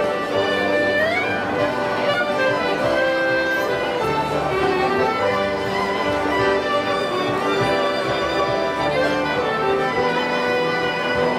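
Small café orchestra of clarinet, double bass and piano playing live, with a note sliding upward about a second in.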